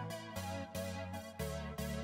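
Background music: sustained chords over a steady beat of about three strikes a second.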